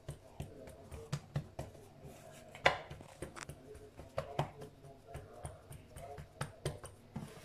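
Fingertips patting and pressing pizza dough out against a floured granite countertop: irregular soft taps and knocks, with one sharper knock a little under three seconds in.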